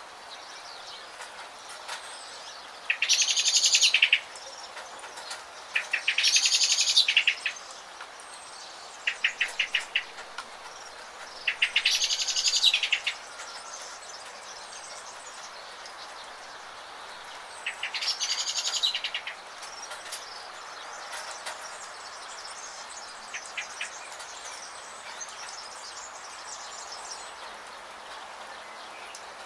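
Songbird singing in rapid, high trilled phrases about a second long: four loud ones a few seconds apart and a few softer, shorter trills between. Behind them runs a steady hiss of rain.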